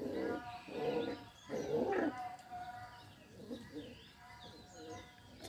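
Puppies growling in rough play, three loud short bursts in the first two seconds, then quieter, broken growls.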